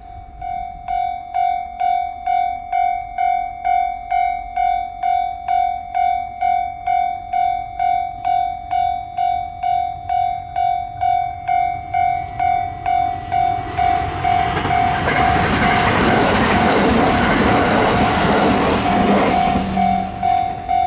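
Japanese level-crossing warning bell ringing steadily, about two strokes a second. A train rushes through the crossing starting about two-thirds of the way in and is gone just before the end, while the bell keeps ringing.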